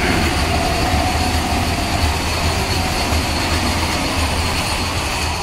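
Vande Bharat Express electric multiple-unit train passing close at speed: a loud, steady rumble of wheels on the rails and rushing air, with a faint steady whine over it.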